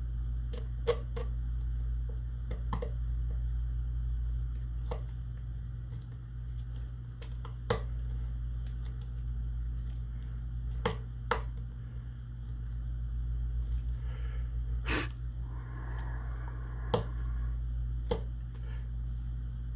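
Scattered small clicks and taps of metal shotgun parts and hand tools being handled during reassembly, over a steady low hum. The sharpest clicks come near the middle and toward the end.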